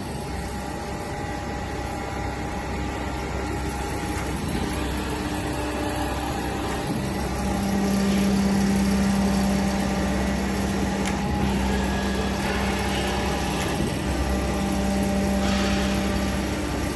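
Kent hydraulic surface grinder running with its hydraulic power pack and motors humming steadily as the table cross-feeds. A deeper hum comes up about seven and a half seconds in and drops away shortly before the end.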